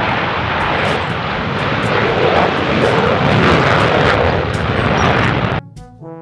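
Fighter jet taking off down a runway, its engines giving a loud, steady rushing roar. The roar cuts off suddenly about five and a half seconds in.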